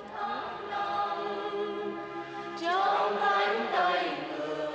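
A choir of young women singing a Vietnamese hymn, holding long notes, with a louder phrase coming in about two and a half seconds in.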